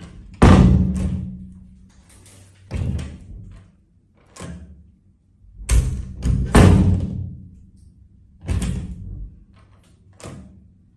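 Stainless steel lever door handle pressed down and released about six times, the latch clicking and clacking with each press, some strokes doubled into quick pairs.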